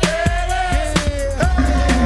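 Hip hop music with a steady drum beat, a bass line and a long held high tone.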